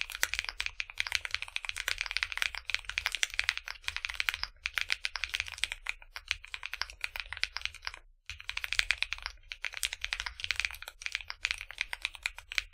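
Fast typing on a custom 60% mechanical keyboard with AKKO Creamy Blue Pro V5 switches and double-shot PBT keycaps: a rapid run of keystroke clacks, with a brief pause about eight seconds in.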